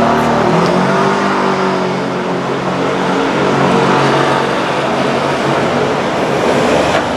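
A motor running: a steady low, pitched hum over a wash of noise, its tones clearest in the first three seconds.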